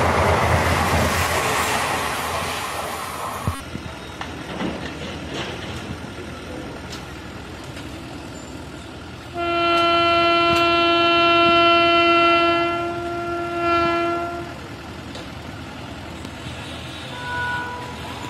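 Passenger coaches rushing past with a loud clatter that fades and cuts off about three and a half seconds in. About nine seconds in, an approaching WAP-5 electric locomotive sounds its horn in one long, steady blast of about five seconds.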